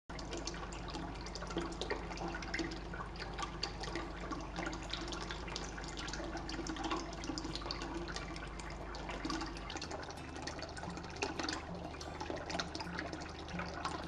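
Small pump-fed cement tabletop fountain running: water splashing and trickling steadily as thin streams fall from a pipe into two cement pots and pour from their spouts into a pebble-filled basin.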